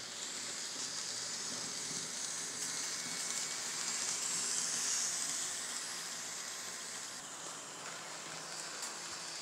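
N-scale model passenger train running on the layout track, a steady hiss of wheels and small motor, loudest about halfway through as it passes close by, then easing off.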